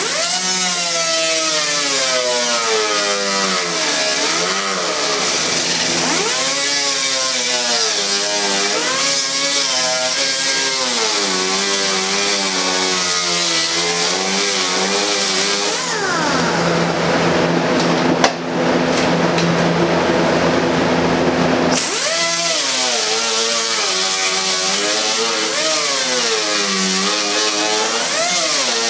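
Small handheld right-angle disc grinder grinding away the wood reinforcement of a fibreglass boat seat base: a high whine whose pitch sags and recovers as the disc bites and eases. About 16 seconds in it winds down with a falling whine, then it starts up again about 22 seconds in.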